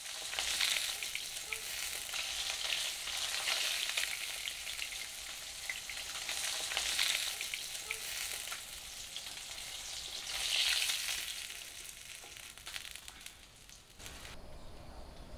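Fish pieces sizzling and crackling as they fry in hot oil in an iron wok, stirred and turned with a spatula. The sizzle swells twice and falls away shortly before the end.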